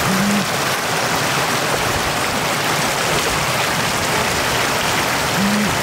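Shallow floodwater rushing steadily over a road surface and churning around a bamboo fish trap set in the current. Two short low tones sound, one just after the start and one near the end.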